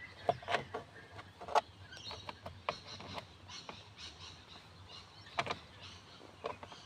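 Scattered clicks, taps and knocks of plastic steering column trim and a screw being handled as the covers are fitted back together, with a cluster in the first second and a sharp knock about five and a half seconds in.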